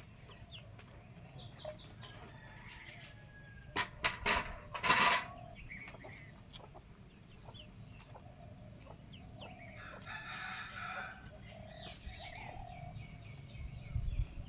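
Domestic chickens clucking, with a rooster crowing about ten seconds in. A few loud thumps come about four to five seconds in.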